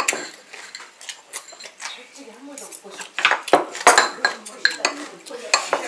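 Metal spoon and chopsticks clinking and scraping against a small ceramic bowl as food is scooped up, a run of sharp clinks that is loudest about three to four seconds in, with a few more near the end.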